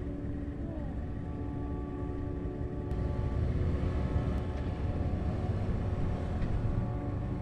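Harley-Davidson motorcycle running at road speed: a low engine rumble with wind on the microphone, growing louder about three seconds in.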